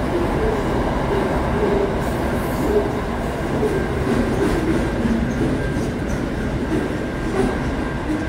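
Freight train's container wagons rolling past, a steady running noise of steel wheels on the rails.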